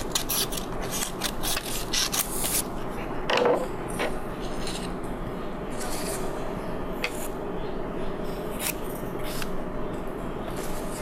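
Construction paper rustling and tapping on a tabletop as hands handle petal strips and press them down onto a sheet: a quick run of rustles and taps in the first few seconds, then scattered ones.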